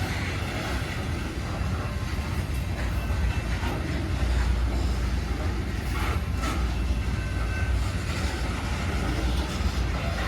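Loaded coal hopper cars rolling past on the rails: a steady, heavy low rumble and clatter of steel wheels, with a few sharp metallic clicks about six seconds in.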